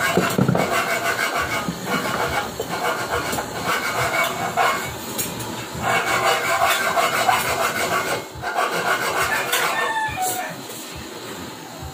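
Hand-held gas torch burning with a steady hiss. Shortly after ten seconds in it goes quieter as the flame is turned down.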